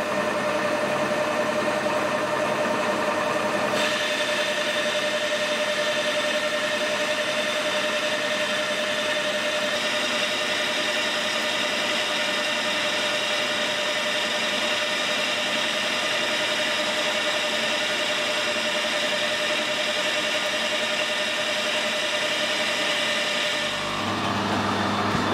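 Metal lathe turning a steel bar with a carbide-insert tool: a steady machine hum under the hiss of the cut. The cutting noise steps up about four seconds in and again around ten seconds, and the sound changes abruptly near the end.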